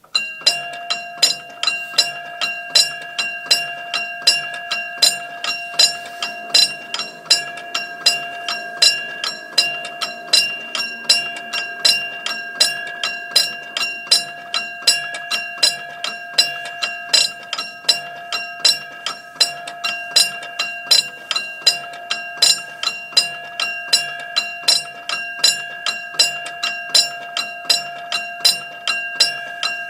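Railroad level-crossing warning bell starts suddenly and rings in an even, rapid run of strikes, each with the same ringing tone: the crossing is activated for an approaching train.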